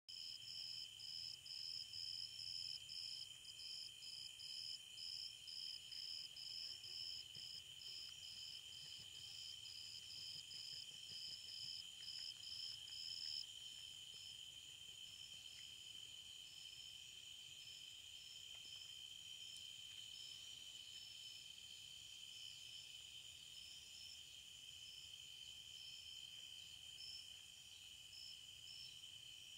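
Evening insects such as crickets: a steady high trill with a nearer insect chirping about twice a second over it. The chirps grow fainter and more irregular about thirteen seconds in.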